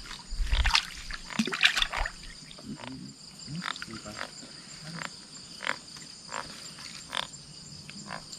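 Night insects chirring steadily and high, with scattered short clicks and croaking calls of frogs, and a couple of louder noisy bursts in the first two seconds.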